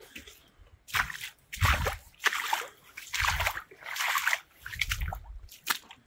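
Footsteps squelching through wet mud and grass, starting about a second in and coming at about one step every three quarters of a second.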